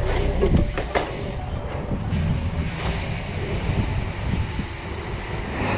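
Steady low rumbling noise, with a few light knocks about half a second and a second in.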